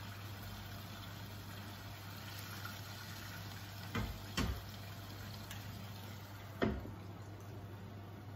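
Salmon fillets frying in a nonstick pan with a steady sizzle. About four seconds in a spatula knocks twice against the pan, and a little later the glass lid clatters down onto the pan, the loudest sound.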